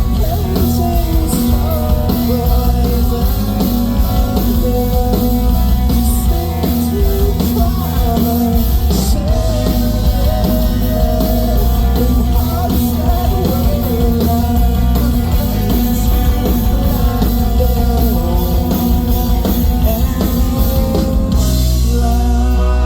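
Live rock band playing loud, with drums, electric guitars and singing; near the end the singing stops and the band holds a sustained, ringing chord.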